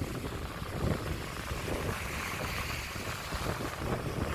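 Strong wind buffeting the microphone with a steady low rumble, over the hiss of sea waves washing onto the shore, which swells in the middle.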